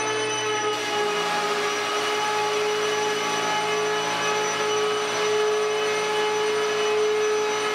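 Steady whine over a rushing hiss from a running vacuum-type machine, unchanging in pitch and level.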